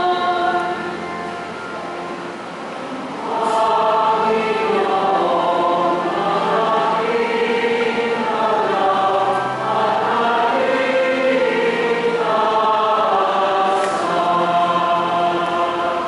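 Church singing: a woman's solo voice holds its last note and stops just under a second in. About three seconds in, a choir takes up a slow refrain in several voices and sings on until near the end.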